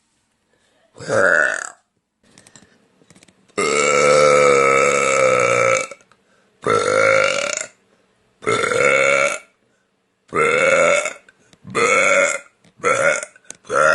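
A woman burping loudly again and again: about eight burps with short silences between. About four seconds in comes one long drawn-out burp that lasts over two seconds; the rest are shorter, and they come quicker toward the end.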